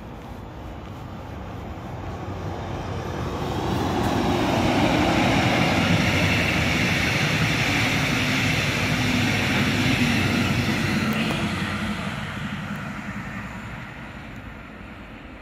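Double-deck regional passenger train passing by, its rolling noise swelling over a few seconds, staying loud for about eight seconds, then fading away.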